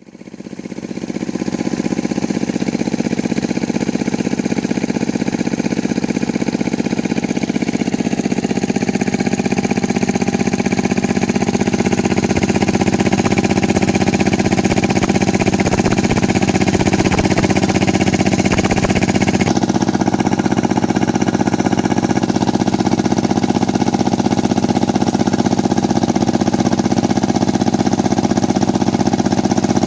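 Engine of a small circular-saw sawmill running steadily, fading in at the start.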